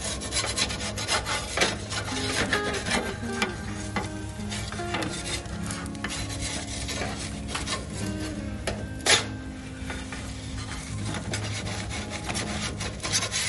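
A metal pizza peel scraping and rubbing against the floor of a Solo Stove Pi pizza oven as a baking pizza is turned, in a run of quick scrapes with a sharper knock about nine seconds in.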